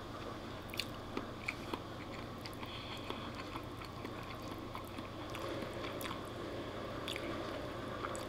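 A person eating spaghetti: quiet chewing, with a few light clicks of a metal fork against a wooden plate in the first couple of seconds as the noodles are twirled.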